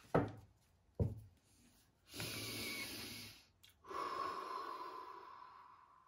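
Two soft taps of a deck of oracle cards being squared, then two long breaths, the second a slow exhale that trails off.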